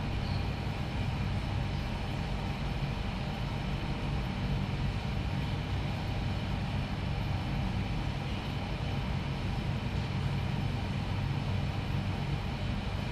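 Steady low mechanical hum with an even haze of noise, unchanging throughout, with no distinct events.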